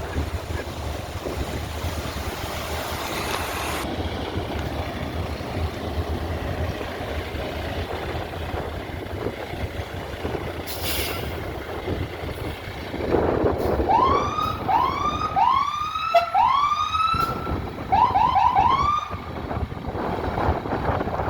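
Fire engine siren sounding in short rising whoops: four longer sweeps, then a quick run of four shorter ones, over a steady low rumble. A short hiss comes about eleven seconds in.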